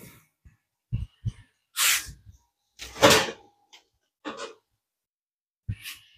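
Scattered handling noises from a person moving about a workbench: two soft knocks about a second in, then short rustles and a louder bump around three seconds in, with silences between.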